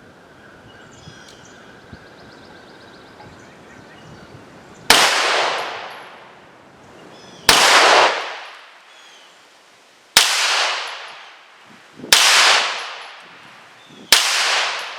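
Five gunshots from 9mm handloaded rounds, fired one at a time about two to two and a half seconds apart, each ringing out and dying away over about a second.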